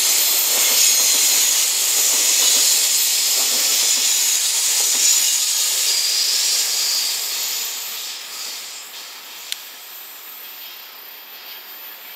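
Container freight wagons rolling past: a loud, steady hiss of steel wheels on the rails. It fades from about seven seconds in as the last wagons pass and draw away. A single sharp click comes about nine and a half seconds in.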